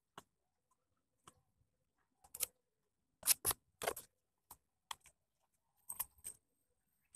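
Putty knife scraping and dabbing thick wall putty onto a pillar in about a dozen short, separate strokes at an uneven pace, the loudest few just past the middle.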